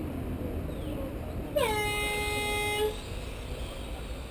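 Race start horn sounding once, about a second and a half in: a single loud tone that dips in pitch at the onset, then holds for just over a second and stops. It is the signal for the start of the race.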